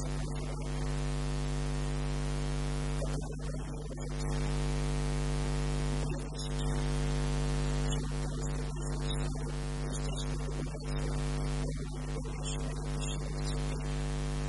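Steady electrical mains hum on the recording: a constant low buzz with a stack of overtones.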